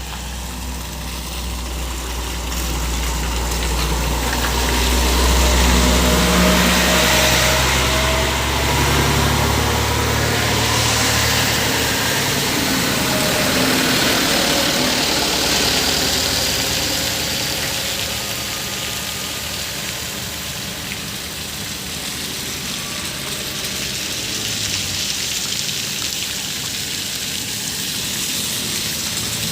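Heavy vehicle engine running close by, its pitch rising and falling, over a steady hiss of tyres and water on a wet road. The engine rumble fades after about ten seconds, leaving mostly the hiss.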